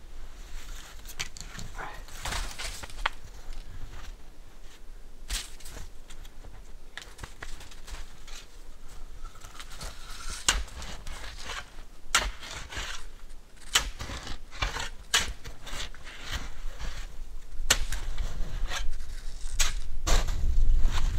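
A shovel chopping and scraping into packed snow: irregular sharp crunches and knocks that come thicker and louder near the end.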